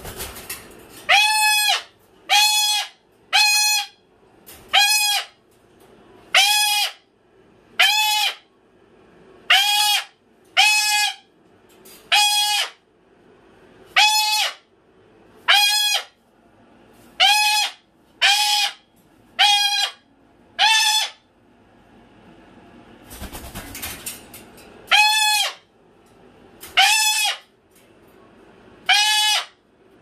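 Moluccan cockatoo screaming: about eighteen loud, short, harsh screams, one every second or two, from a bird upset by snow sliding off the roof. A short rushing noise comes at the start and again in a gap a little over two-thirds of the way in.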